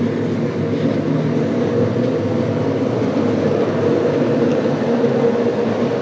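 An unidentified machine running with a steady mechanical hum, several low tones held evenly throughout.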